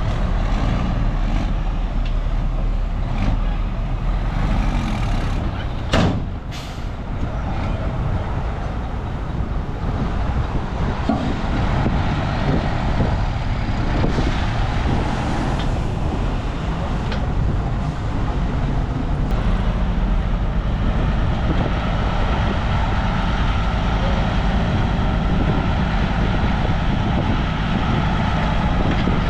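Heavy diesel earthmoving machinery, a bulldozer and dump trucks, running steadily with a low engine rumble; two short, sharp sounds stand out about six seconds in.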